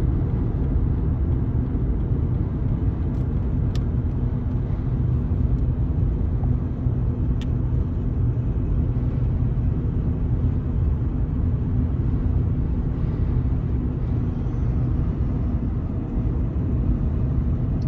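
Steady road and engine rumble heard from inside a car's cabin while cruising at highway speed.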